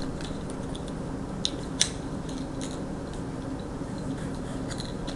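Small clicks and taps of plastic board-game pieces being handled, with two sharper clicks about a second and a half in, over a steady low hum.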